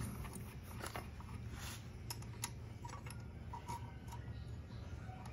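Scattered light metallic clicks and taps of engine parts being handled: a cylinder barrel and aluminium base gasket being fitted to the crankcase of a two-stroke Yamaha F1ZR engine. A low steady hum runs underneath.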